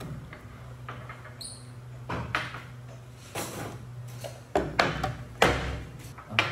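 Warm black-bean soy milk poured from a glass carafe into a ceramic cup in several short noisy bursts, with the carafe then set down on the table. A brief squeak comes about a second and a half in, over a steady low hum.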